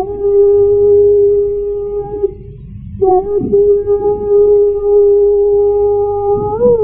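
Male Quran reciter's voice holding a long, steady note in melodic (mujawwad) recitation. It breaks off briefly a little over two seconds in, then holds another long note that lifts slightly in pitch near the end.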